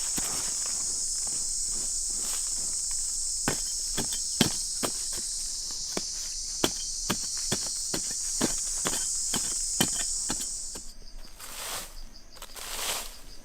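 Steady high-pitched chirring of an insect chorus that cuts off suddenly about eleven seconds in, with a string of sharp clicks or knocks, about two a second, through the middle.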